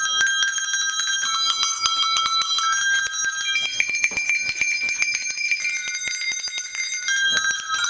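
A set of tuned cow bells played continuously, ringing notes overlapping and stepping from pitch to pitch every second or so to carry a tune, with a steady patter of strikes.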